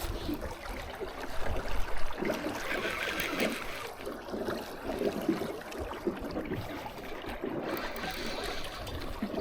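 Wind rumbling on the microphone and river water moving past an anchored boat in strong current, with scattered knocks and rustles of handling while a catfish rod is worked.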